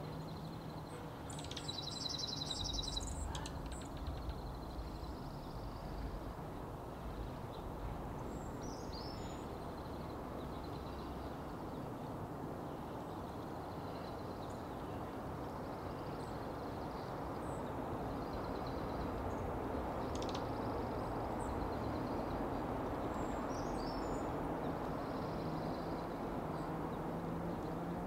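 Steady background noise with small birds chirping now and then, and a brief buzzy trill about two seconds in.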